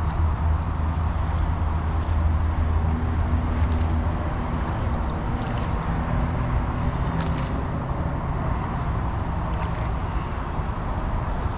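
Steady drone of road traffic, with a low engine hum that is strongest in the first few seconds and then eases.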